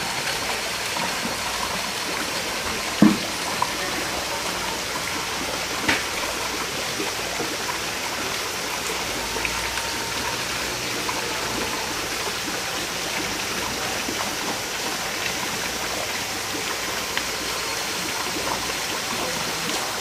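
Steady rushing of a river flowing over rocks, an even wash of water noise. A short, sharp knock sounds about three seconds in, and a fainter one near six seconds.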